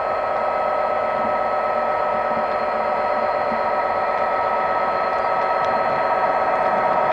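Model locomotive's DCC sound decoder playing a steady engine sound through its small onboard speaker, with a constant hum made of several held tones.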